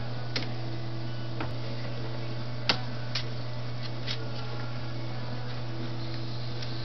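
Steady low hum with a few sharp, light clicks and taps scattered over it, the loudest about two and a half seconds in.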